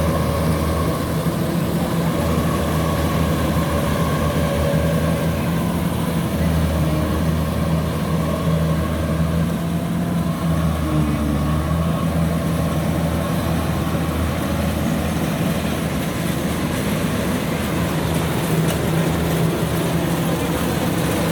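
Kubota DC93 rice combine harvester running steadily, its diesel engine holding an even low note with the harvesting machinery working alongside.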